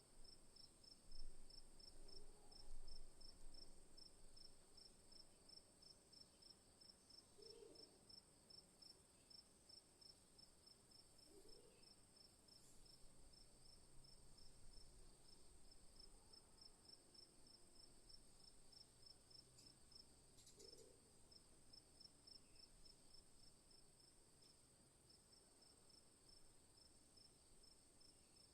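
Faint forest insect chorus: a steady high buzz with a regularly pulsed cricket-like chirp repeating a few times a second throughout. A few short low calls sound at intervals, and two soft bumps occur in the first few seconds.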